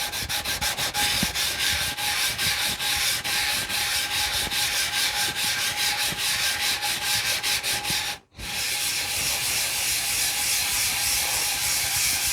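Wooden knife handle scale rubbed by hand back and forth on coarse 60-grit sandpaper over a flat granite plate, flattening it. The strokes are quick and rhythmic, about four a second. There is a brief break a little past halfway, then the sanding runs on more evenly.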